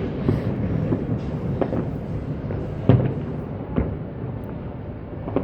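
Distant fireworks shells bursting over the city, a series of sharp booms, the loudest about three seconds in, over a steady low rumble of echoing reports.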